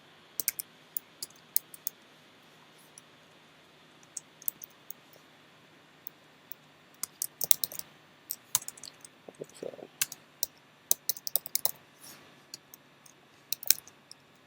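Typing on a computer keyboard: irregular runs of sharp keystroke clicks with short pauses between them, busiest in the second half.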